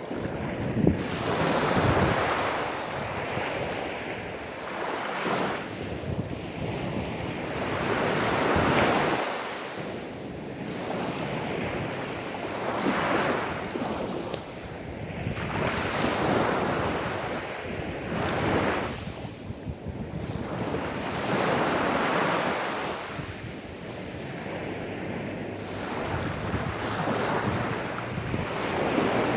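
Gentle sea waves washing onto a sandy beach, each wash swelling and fading every few seconds.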